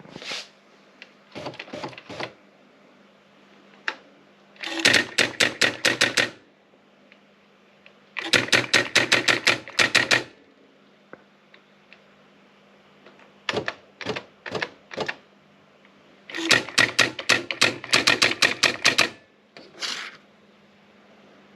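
Erika 3004 electronic daisy-wheel typewriter printing in quick, even runs of sharp strikes, about five or six a second, with pauses between the runs. A steady low hum lies under them.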